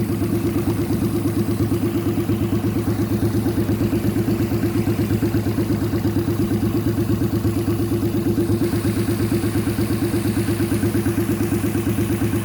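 Car engine of about 1000cc, mounted in a custom-built motorcycle, running steadily at a constant low speed with an even, regular throb and no revving.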